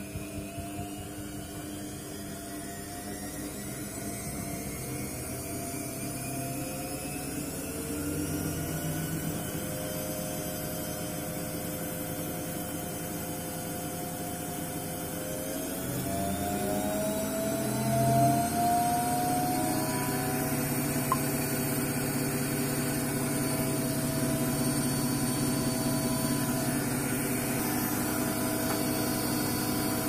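Front-loading washing machine running, its motor and turning drum giving a steady hum with several tones. The tones slowly rise in pitch and grow louder as the drum speeds up, with a quicker rise about halfway through.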